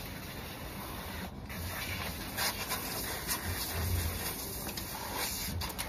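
Garden hose spraying water in a steady hiss while a puppy's muddy paws are washed, with a few soft low thumps.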